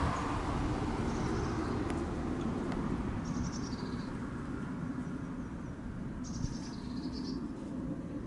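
A small bird singing three short trilled phrases that drop in pitch at the end, over a steady low rumble.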